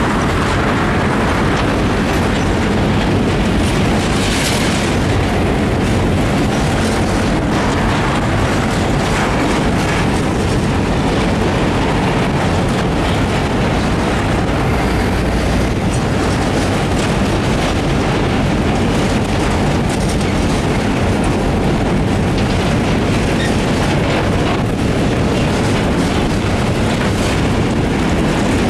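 Series 661 (EMD G16) diesel locomotive running steadily at speed, heard from the cab: a loud, even mix of its two-stroke diesel engine and its wheels rolling over the rails of a steel truss bridge.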